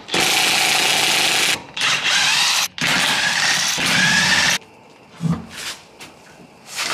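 Cordless DeWalt impact wrench hammering lug nuts off a car wheel in three loud bursts of a second or more each, with short pauses between. The wrench stops about four and a half seconds in, and a dull thump follows about a second later.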